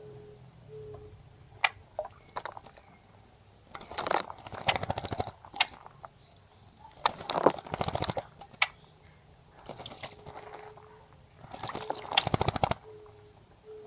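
Birds bathing in a bird bath, splashing and fluttering in the water in three bursts of rapid splashing, with a few single flicks of water between them.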